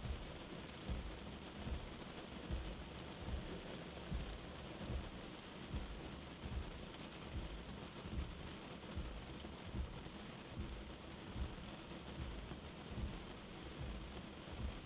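Steady rain falling, an even hiss, with soft low thuds recurring about once a second.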